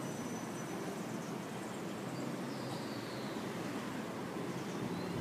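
Steady hum of town street traffic, an even low rumble with no single passing vehicle standing out.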